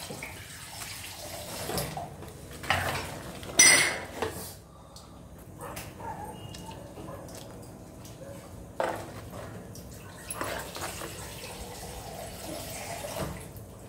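A steel ladle stirring a thick, simmering curry in a pot: scattered clinks and knocks of the ladle against the pot, the loudest a few seconds in, with the curry sloshing and dripping as it is stirred.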